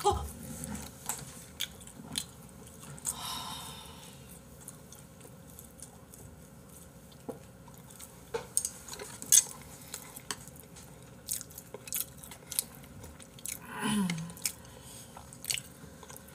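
Close chewing of chewy chicken gizzards and fries, with scattered light clicks and taps of chopsticks against plates and a plastic container; the sharpest click comes about nine seconds in.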